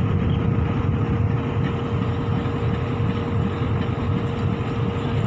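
Pakistan Railways container freight train rolling slowly past, a steady low rumble of wagon wheels on the rails with a thin steady tone running through it.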